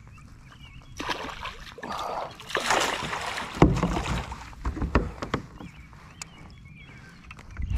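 River water splashing and sloshing in the shallows as a hooked smallmouth bass is brought in, with heavy handling bumps and knocks midway through.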